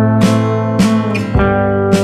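Background music: an acoustic guitar strumming chords in a steady rhythm, about two strums a second.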